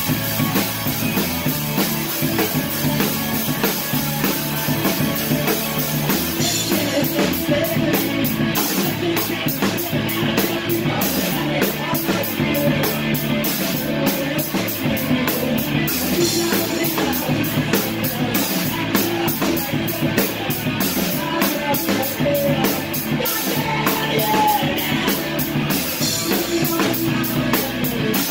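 Live band playing loudly, heard close up at the drum kit, with drums and cymbals to the fore. About six seconds in, a fast, even cymbal pattern comes in.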